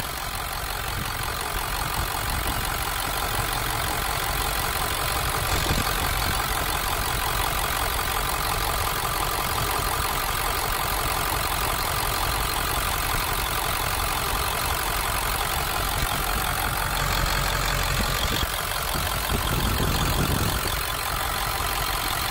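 Ford 7.3 Powerstroke V8 turbo diesel idling steadily, heard up close from the open engine bay.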